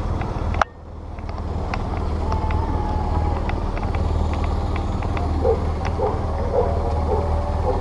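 Steady low rumble with scattered light clicks, the handling and movement noise of a camera strapped to a walking dog's back. Faint distant voices sound behind it.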